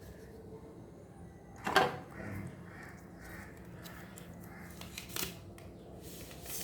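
Two sharp clicks about three seconds apart as a smartphone is handled, the first the louder, with faint rustling in between.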